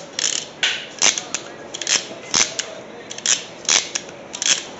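Hand wire crimper snapping and clicking in quick, irregular strokes as a ring terminal is crimped onto a wire end.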